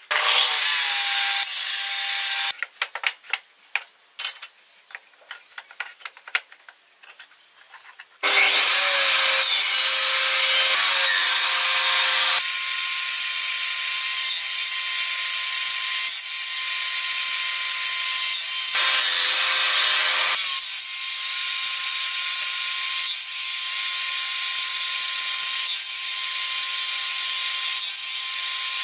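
A short burst of power-tool noise, then several seconds of small clicks and taps. About eight seconds in, a benchtop table saw starts and runs loud and steady with a whine, its tone deepening twice as the blade cuts spline slots across the corner of a wooden box held in a cradle jig.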